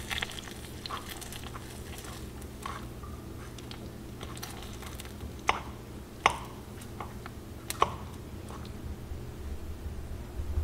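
Sugar syrup for tanghulu bubbling in a frying pan while a spoon scrapes and clinks against the pan and a skewer of grapes, with small scattered clicks and three sharper clinks in the middle.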